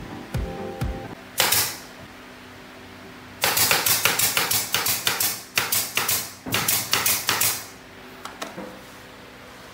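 Pneumatic nail gun firing a rapid string of shots into plywood, four or five a second for about four seconds, each a sharp crack with a short hiss of air; a single shot comes about a second and a half in.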